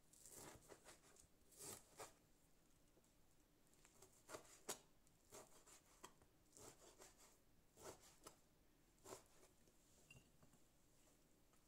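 Faint, irregular strokes of a chef's knife cutting through bacon and meeting a plastic cutting board, roughly one a second.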